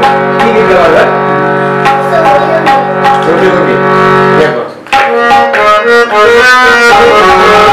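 Harmonium holding a steady chord, which breaks off briefly about five seconds in. It then plays a melodic phrase of changing notes, with tabla coming in under it near the end.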